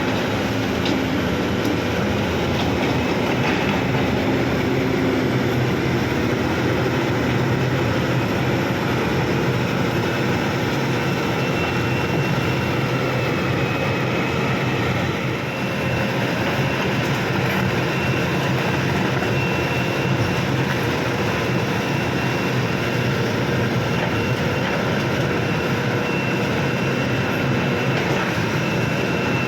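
Heavy diesel machinery engine running steadily, with a thin high whine joining about a third of the way in.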